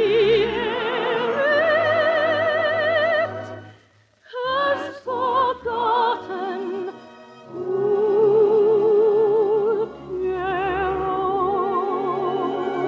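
A classically trained soprano singing with an orchestra, her long held notes carrying a wide vibrato. About four seconds in she breaks off briefly, sings a few quick high notes, then settles into long held notes again.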